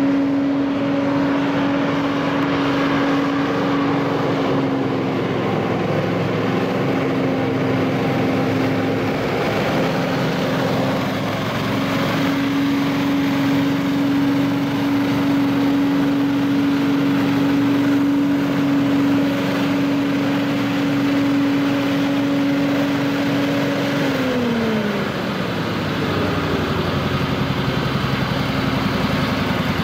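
Billy Goat Z3000 stand-on blower's 35 hp Briggs & Stratton engine and fan running at a steady high speed. Near the end the pitch drops over a couple of seconds as the engine is throttled back to a lower, pulsing idle.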